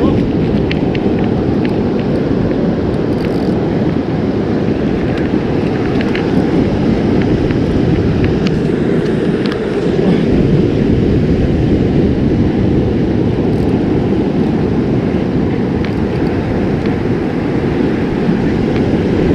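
Steady wind noise on the microphone, a loud low rumble, with surf breaking on the beach underneath.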